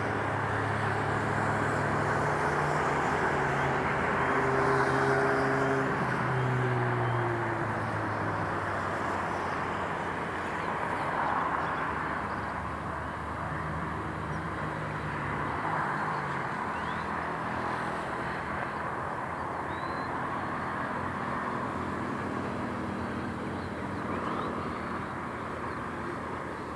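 City street ambience: a steady wash of traffic noise. A vehicle engine passes in the first several seconds, its pitch dropping as it goes by, and another passes about halfway through.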